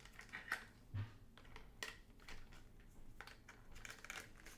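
Light, scattered clicks and taps of a digital multimeter and its test leads being handled, with a small knock about a second in.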